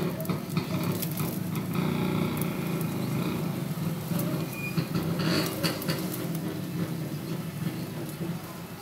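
Egg-coated bread frying in oil in a nonstick pan, sizzling, while a metal fork scrapes and taps against the pan as the slice is pressed and turned. A steady low hum runs underneath.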